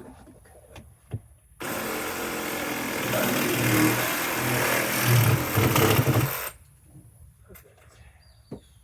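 A power tool runs for about five seconds, starting and stopping abruptly.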